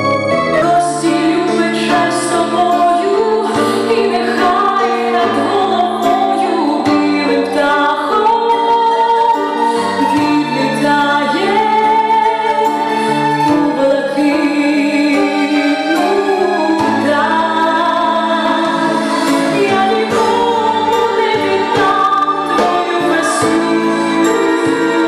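A woman singing a song into a microphone over instrumental accompaniment.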